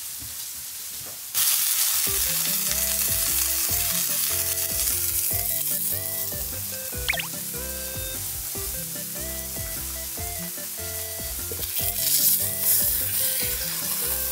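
Beef steak sizzling on a hot plate, the hiss starting suddenly about a second in and running on steadily. Background music with stepped low notes plays under it.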